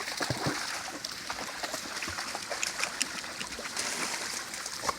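Stream water trickling and splashing, a steady rush with many short sharp splashes and clicks scattered through it.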